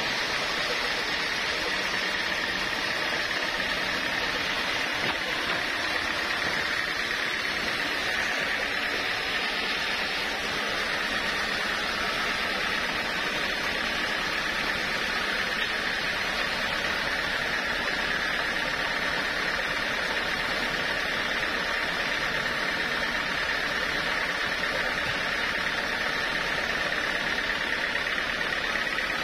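Sawmill machinery running steadily, with a constant high whine over an even, unbroken noise.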